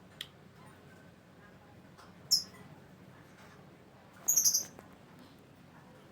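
Pet lovebird giving shrill, high-pitched chirps: one short sharp chirp about two seconds in, then a longer burst of rapid chirps about four seconds in.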